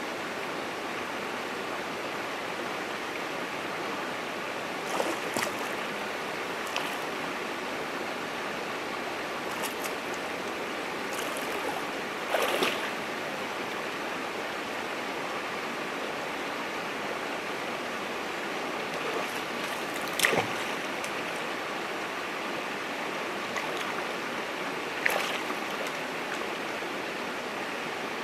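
Small rocky creek flowing, a steady rush of water over stones, broken a few times by brief, sharper, louder sounds.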